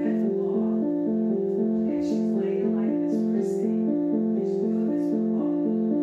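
Electronic keyboard playing a quick, even back-and-forth between two notes over a held note, a made-up imitation of an ambulance siren.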